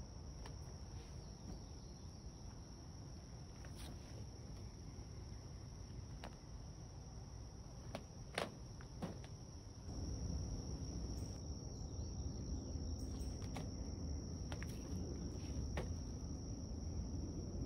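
Insects droning in the woods: one unbroken high-pitched buzz. Scattered light clicks come through over it, and a low rumble grows louder about ten seconds in.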